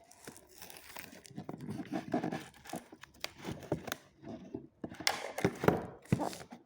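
Toy packaging being torn open and handled: irregular tearing and crinkling with sharp clicks and crackles.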